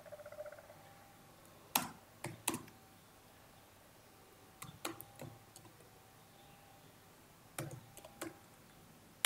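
Computer keyboard keystrokes and clicks, a few at a time in short clusters of two or three with pauses between.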